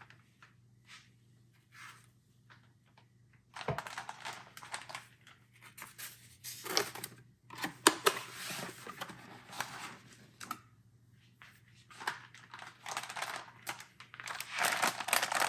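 Graphics-card packaging being handled: the plastic anti-static bag and foam rustling and crinkling in irregular bursts, with sharp clicks and knocks, starting about three and a half seconds in after a quiet start and pausing briefly near the end.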